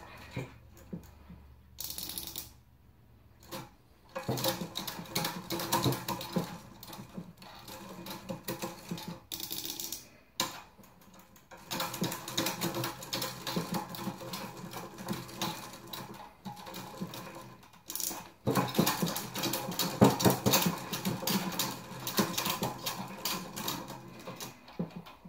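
Bicycle chain drive on a hand-cranked expanding-chainring model clicking and rattling rapidly as the crank turns, in several spells with short pauses between them.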